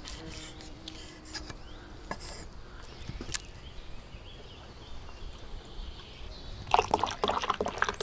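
Beer poured from a glass bottle into a tall glass, starting near the end: a loud spell of glugging and splashing as the glass fills.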